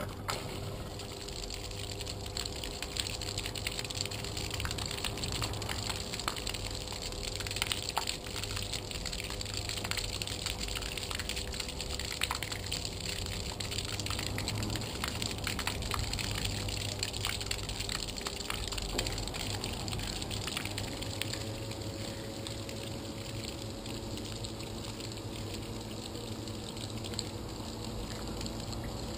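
Rule bilge pump running in a flooded Hobie Outback kayak hull, humming steadily while it pumps water out through the side outlet, the jet splashing down beside the hull. About two-thirds of the way through the hum changes and settles a little higher, and the outflow is down to a trickle near the end.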